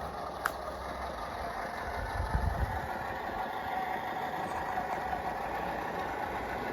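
Steady engine-like idling hum from radio-controlled model machinery, with a sharp click about half a second in and a few low thumps around two seconds in.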